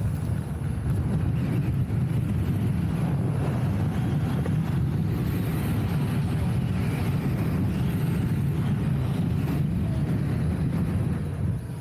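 Steady wind rush on the microphone with road noise while riding a Gotway RS HS electric unicycle at speed.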